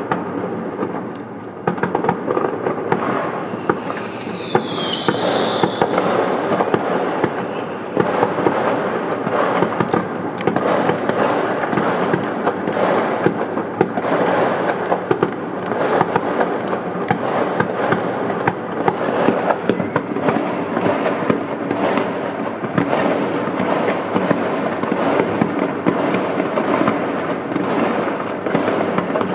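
Fireworks and firecrackers going off all around in a dense, continuous crackle of cracks and bangs. About four seconds in, a whistle falls in pitch over about two seconds.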